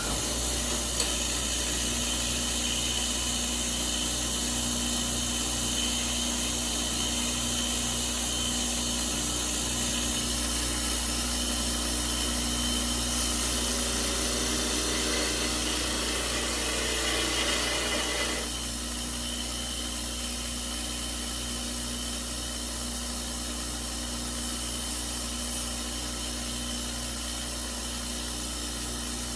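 Power grinder running steadily while grinding down the tips of steel screws, a steady whine with grinding noise. The grinding gets louder and harsher for several seconds past the middle, then eases off at about eighteen seconds and the grinder runs on a little quieter.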